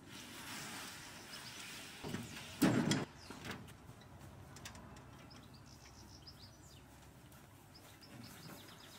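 Birds chirping faintly over garden ambience, with a short heavy rumble and bump about two to three seconds in as a log-laden wheeled trolley is shoved across the lawn.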